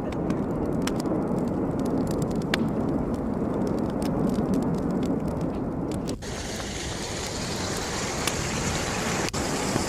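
Steady low rumble of an erupting volcano, scattered with many sharp crackles. About six seconds in it changes abruptly to a hissier rumble.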